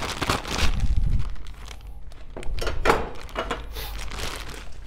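Crinkling and rustling of packaging, with irregular light knocks as the roaster's bean catcher tray is handled and fitted onto the front of the roaster.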